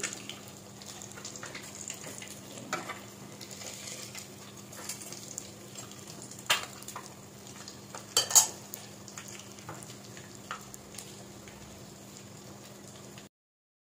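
Batter-coated eggs (kwek kwek) deep-frying in hot oil, a steady sizzle and crackle. A utensil knocks sharply against the pot two or three times around the middle as the pieces are turned. The sound cuts off shortly before the end.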